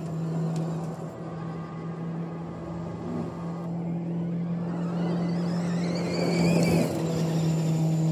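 Audi RS Q e-tron electric rally car driving on a dirt track, with a steady low drone throughout. About five seconds in, a high electric-motor whine rises in pitch for a couple of seconds as it speeds up.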